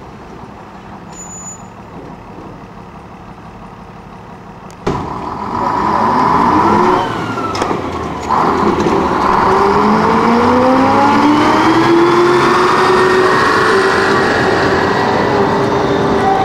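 A diesel engine starts abruptly about five seconds in and runs loudly. It revs up with a rising pitch, then holds at a steady higher speed.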